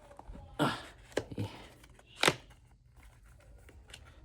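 Packaging of a puzzle cube's accessories being handled and pulled open: four short rustles, the loudest a little over two seconds in.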